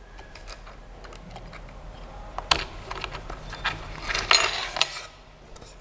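Hands unclipping the holding clips and lifting a thin engraved wood sheet off a 3D printer's bed: scattered clicks, knocks and scrapes. There is a sharp click about two and a half seconds in and a cluster of clicks about four seconds in.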